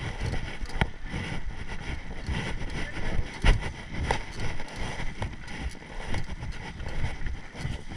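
Riding noise from a mountain bike on a dirt trail, picked up by a GoPro: a steady rush of wind and tyre noise with scattered knocks and rattles from the bike, the loudest about three and a half seconds in.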